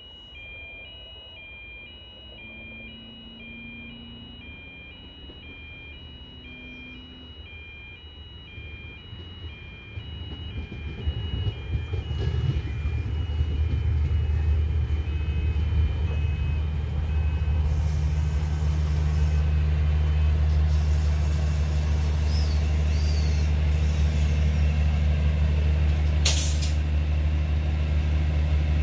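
Alternating two-tone electronic warning beeps, then a diesel train engine coming up, building to a loud, steady, low drone that holds to the end, with one short sharp sound near the end.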